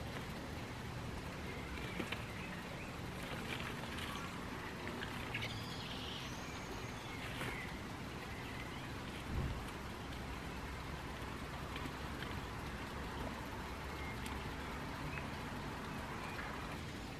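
Repotting seedlings by hand: potting soil crumbling and trickling, with the light rustle and knock of small plastic plant pots, and one dull thump about nine seconds in.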